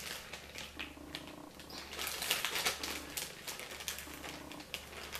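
Plastic zip-top storage bag crinkling as it is handled, with a run of small irregular clicks as its zipper seal is pressed shut.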